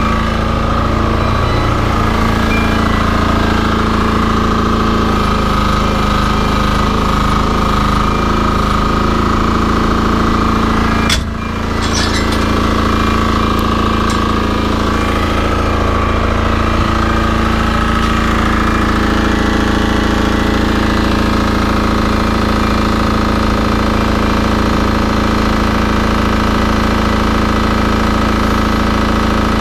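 Diesel engine of a motorised aircraft passenger-stair unit running with a steady rattle, with a short knock about eleven seconds in.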